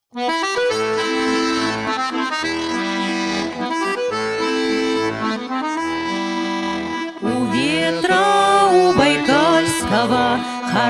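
Accordion playing the introduction of a song, a melody in held chords over alternating bass notes. About seven seconds in, a singing voice with vibrato comes in over the accordion.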